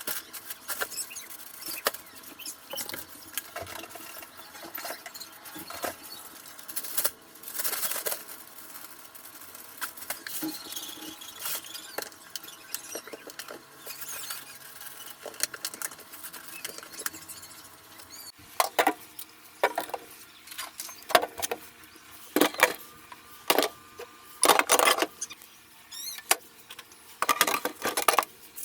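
Containers and packaged groceries being handled and set down: scattered clicks, knocks and rustling, growing louder and more frequent about two-thirds of the way through, over a faint steady hum.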